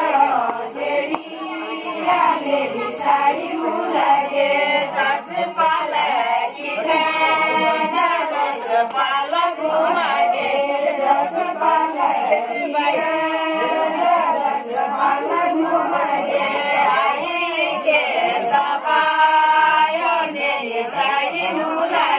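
Group of women singing a Kumaoni jhoda folk song together as they dance, with long held notes recurring every few seconds.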